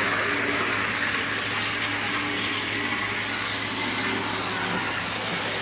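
Model train locomotive running on the track, a steady whir of its motor and wheels with a constant low hum underneath.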